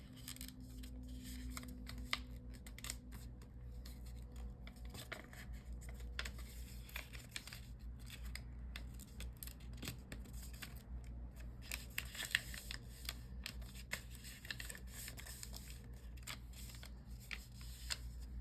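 Origami paper being folded and pushed into shape by hand, with many small crisp crackles and rustles as the creases are pressed.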